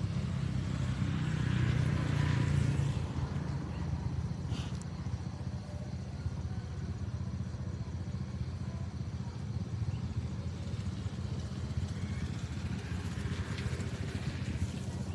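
A motor running steadily as a low hum, louder in the first few seconds. Dry straw rustles about two seconds in and again near the end.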